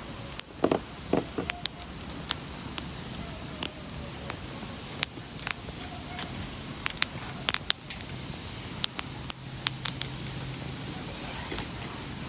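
Wood fire burning in a fire pit, crackling with irregular sharp pops over a steady hiss. A low steady hum grows stronger from about nine seconds in.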